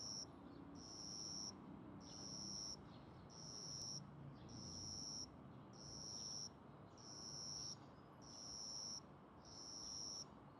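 A small cricket stridulating with raised wings: about eight high-pitched chirps at one steady pitch, each lasting under a second, repeating a little more than once a second and stopping near the end.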